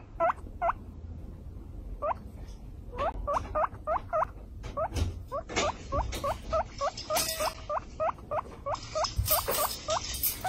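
Guinea pigs squeaking in short rising calls: a few scattered at first, then a quick run of about three a second from about three seconds in. Some rustling joins near the end.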